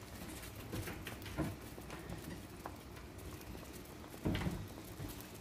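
Water heating in a stainless steel pan toward a simmer: faint, irregular ticking and popping of small bubbles, with a couple of slightly louder clicks about a second and a half in and again near four seconds.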